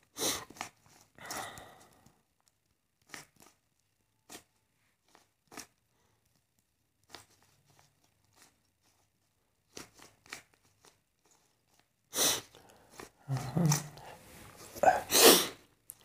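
Plastic 3x3 Rubik's cube being turned by hand: scattered sharp clicks as layers snap into place, with louder bursts of rapid turning and handling noise about twelve seconds in and again near the end.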